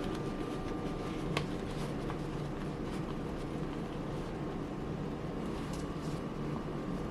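Plastic shift-boot trim and leather boot being handled: faint clicks, one sharper click about a second and a half in, over a steady room hum.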